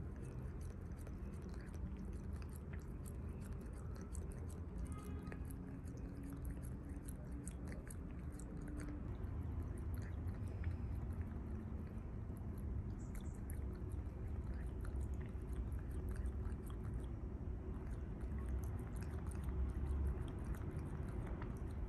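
Maine Coon cat lapping water from a plastic tub: a quick, continuous run of small wet tongue clicks.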